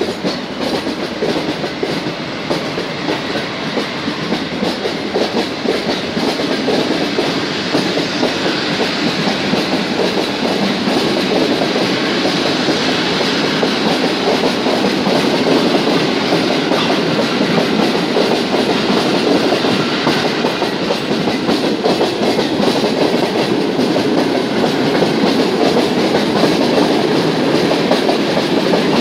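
Passenger coaches of a departing PKP Intercity express rolling past, a continuous rattle and rumble of wheels on the track that gets gradually louder.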